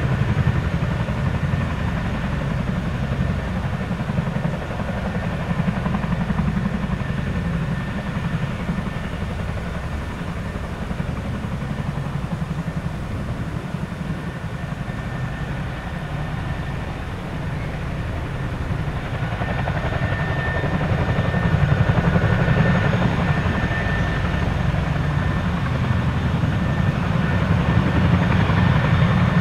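Boeing CH-47 Chinook tandem-rotor helicopter running, its twin turboshaft engines whining over a fast, steady rotor beat. The sound grows louder about two-thirds of the way through.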